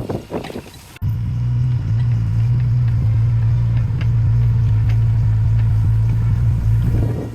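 Mini excavator's diesel engine running at a steady speed, a loud, even low drone that cuts in abruptly about a second in and holds unchanged until near the end.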